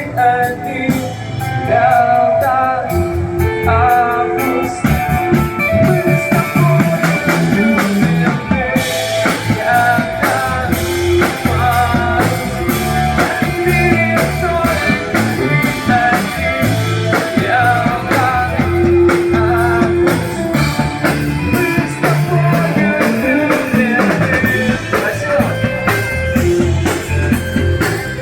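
Guitar-led rock music with bass and drums, played without words; cymbals join about nine seconds in.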